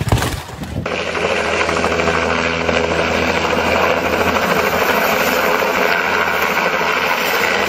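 A turbine helicopter's engine and main rotor running steadily at speed, cutting in abruptly about a second in.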